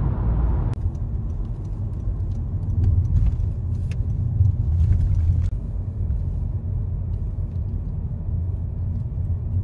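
Low, steady rumble of road and engine noise inside a moving car's cabin, with a few faint clicks and rattles. A higher hiss cuts off abruptly under a second in.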